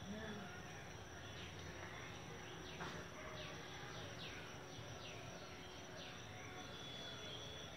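Steady high-pitched insect chirring, like crickets, with a few faint short downward chirps spaced about a second apart through the middle.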